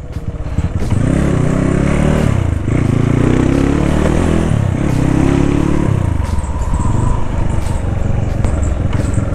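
Motorcycle engine pulling away and accelerating: its pitch climbs and drops back three times in the first six seconds, as through gear changes, then holds steadier.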